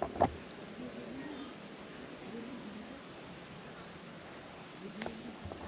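A steady, high-pitched insect chorus, with a sharp click about a quarter second in and a softer one near the end.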